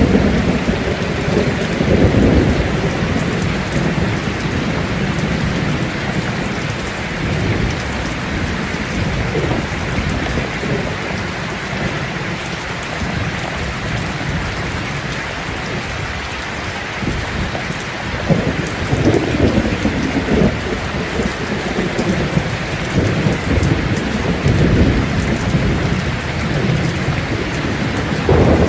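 Steady rain falling with rolling thunder rumbling low underneath, swelling about two seconds in and again through the last third.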